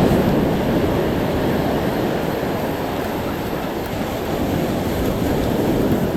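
Ocean surf breaking on the beach: a steady rushing noise without a break.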